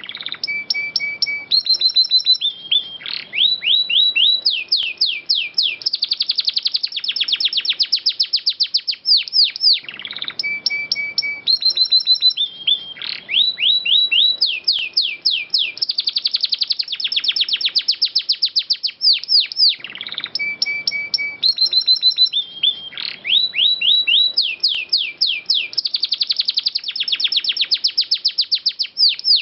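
Domestic canary singing a long rolling song of rapid trills and fast sweeping whistles. The same phrase of about ten seconds repeats three times, as in a looped training recording.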